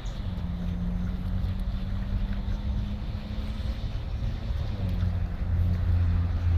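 Motorboat engine droning low and steady, with wind rumbling on the microphone; the drone grows louder near the end.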